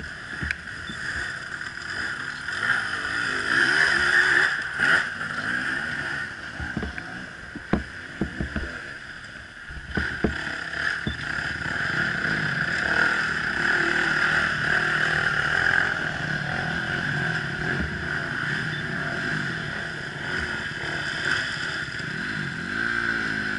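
Dirt bike engines revving up and down unevenly as riders work their bikes up a steep rocky climb, under a steady high-pitched hum, with a few sharp knocks in the first half.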